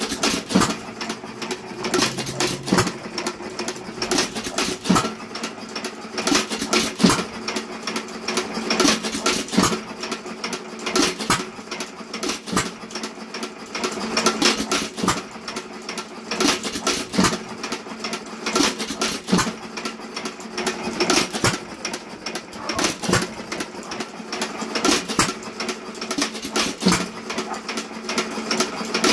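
Associated 1.75 hp air-cooled hit-and-miss engine running, firing with a louder stroke roughly every two seconds and coasting between firings. A fast, steady mechanical clatter of valve gear and moving parts runs throughout.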